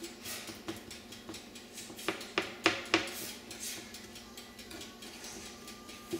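Silicone spatula stirring and scraping granulated sugar and salt around a hot frying pan, a gritty scratching with a few sharper taps against the pan about two to three seconds in. The sugar is just starting to melt and brown into caramel.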